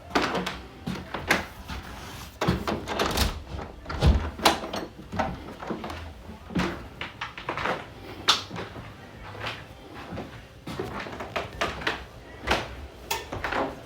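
Irregular clicks, knocks and thuds of objects being handled in a kitchen, with the loudest thud about four seconds in.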